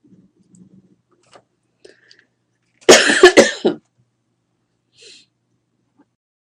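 A person coughing: a short, loud fit of about three coughs about three seconds in, followed by a faint breath.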